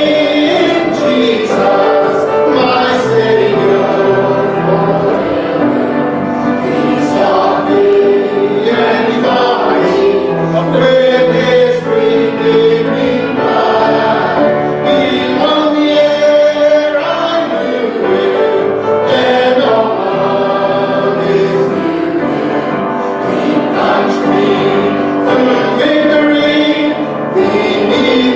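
A church congregation singing a hymn together, a song leader leading them: the invitation hymn sung while people are called forward for baptism.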